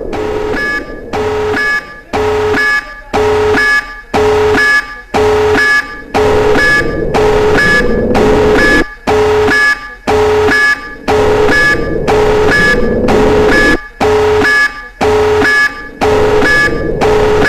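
Nuclear alert alarm: a loud electronic alarm pulsing steadily, about two tone pulses a second.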